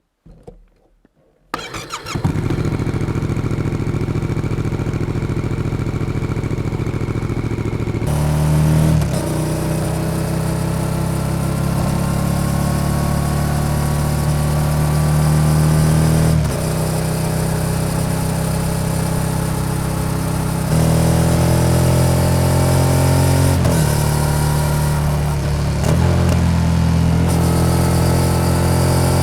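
Yamaha XSR700 parallel-twin with an SC-Project exhaust being started. It catches about a second and a half in and idles steadily. After about eight seconds it pulls away, the engine note rising through several gears with a short dip at each shift.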